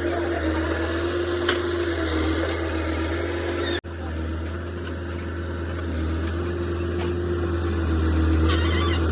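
Heavy diesel engine of earth-moving machinery running steadily with a constant drone, the sound cutting out for an instant about four seconds in and growing slightly louder near the end.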